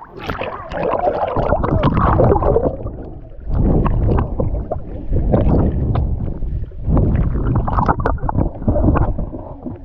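Water splashing and sloshing against a swimmer's action-camera microphone at the surface. About three and a half seconds in, the camera goes under, and the sound turns to a muffled underwater gurgling and rumbling that comes and goes in surges.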